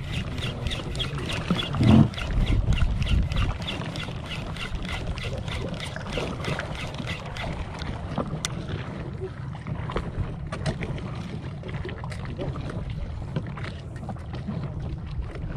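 Steady low noise out on a small boat on open water, with a rapid, even ticking of about three or four ticks a second through the first half.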